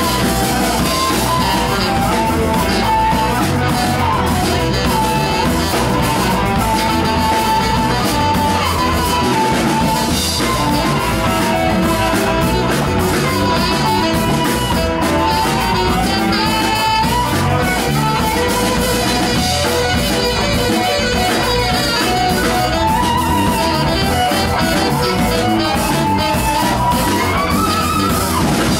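Live rock band playing an instrumental Latin rock passage: drum kit and electric guitars keep a steady groove while a single lead line wanders over the top.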